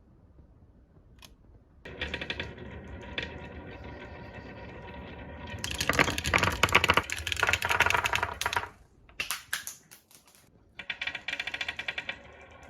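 Marbles rolling and clattering down a HABA wooden marble run, a dense run of fast clicks and rattles that starts about two seconds in, is loudest in the middle, breaks into a few short bursts, then picks up again near the end.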